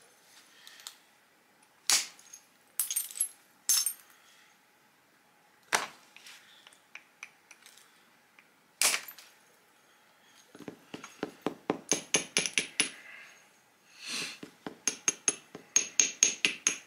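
Antler tool working the edge of a chert flake: a few single sharp clicks as small flakes snap off, then two runs of quick, even clicking, about six a second, in the second half.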